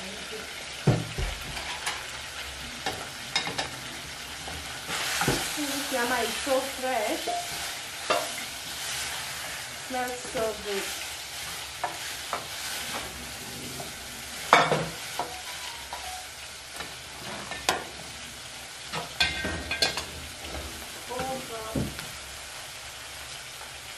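Wooden spoon stirring onions frying in a large aluminium pot, over a steady sizzle. The spoon scrapes and squeaks against the pot, with scattered sharp knocks; the loudest knock comes a little past halfway.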